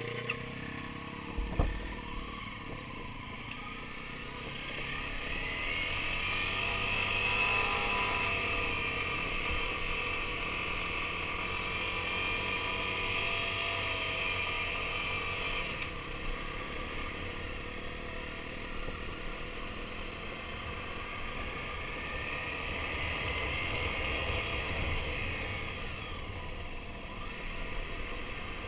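Dual-sport motorcycle engine running under way on a dirt trail. Its pitch climbs as it accelerates twice, a few seconds in and again past the middle, and drops back each time. There is a sharp thump about a second and a half in.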